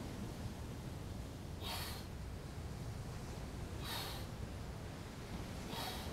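A man breathing out sharply three times, about every two seconds, once with each push-up rep, over a steady low rumble.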